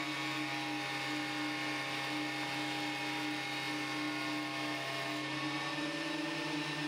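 Metabo DH330 thickness planer running with no board in it, a steady machine hum after the cut has finished.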